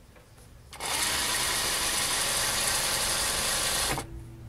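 Electric sewing machine running at a steady speed, stitching a seam through pieced quilt fabric. It starts about a second in and stops abruptly shortly before the end.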